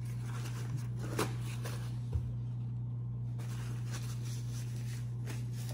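A steady low hum with a few faint clicks and taps, about a second and two seconds in and again near the end.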